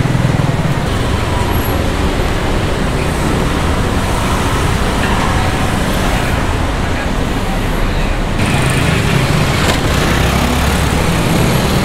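Steady street traffic: the engines and tyres of passing vehicles, with a low engine hum that swells near the end.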